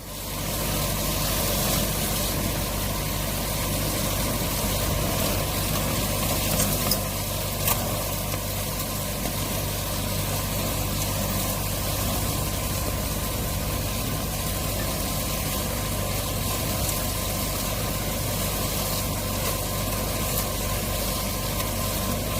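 Garlic stem cutting machine running steadily, a constant mechanical hum with a faint steady whine. Two short sharp clicks come about seven and eight seconds in.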